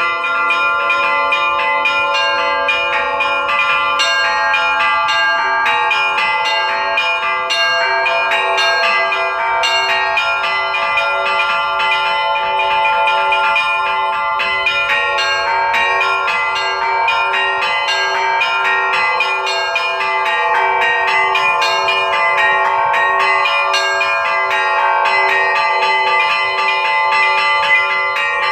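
A set of cast bronze Russian Orthodox church bells rung by hand in a continuous peal (zvon). The small bells are struck in quick repeated patterns over the lingering hum of the larger bells, and one mid-pitched bell is struck in a steady beat.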